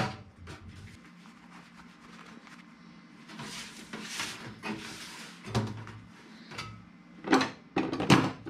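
Sheet-metal duct pipe being worked by hand as its seam is split open: a couple of seconds of metal scraping midway, then several sharp clanks.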